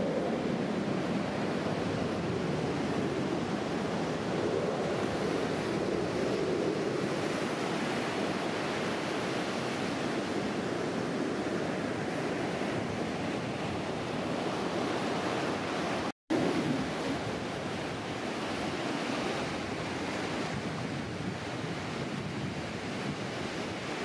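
Pacific surf: waves breaking and washing up over a flat sandy beach, a steady rushing that cuts out for an instant about two-thirds of the way through.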